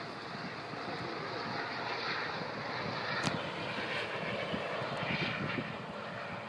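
Eurocopter rescue helicopter in flight some way off: a steady hum of rotor and turbine.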